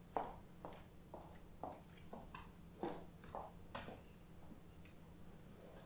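Faint footsteps on a tiled floor, a light tap roughly every half second, growing fainter as the walkers move away, over a steady low hum.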